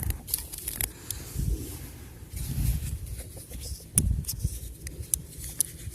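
Handling sounds of a small bike multi-tool: scattered light metal clicks and knocks as its Allen keys are tried on a bolt and don't fit, with a sharper knock about four seconds in.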